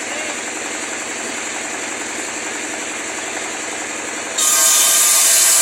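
A woodworking power tool running steadily; about four seconds in, a much louder, high-pitched hissing noise starts suddenly and keeps going.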